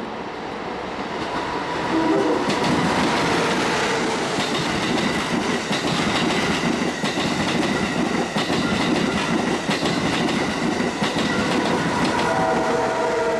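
A train passing close by at speed. The sound builds over the first two seconds to a loud, steady rush of wheels on rails with repeated clacks over the rail joints, then holds.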